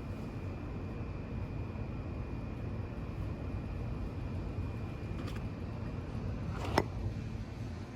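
Mainstays 42-inch ceiling fan running on high speed: a steady rush of moving air with a thin, steady high whine. A sharp click sounds near the end.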